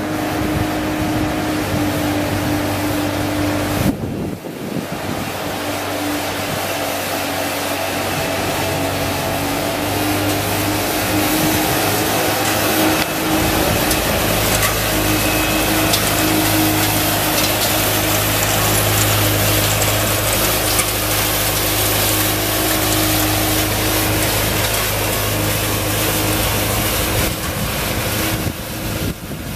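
Lay-Mor 8C SweepMaster ride-on sweeper running as it drives, its Cummins diesel engine giving a steady drone under a constant noisy hiss. The sound breaks off briefly about four seconds in.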